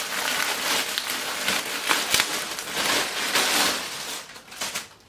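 Clear plastic clothing packaging bag crinkling and crackling as it is pulled open by hand, dying away near the end.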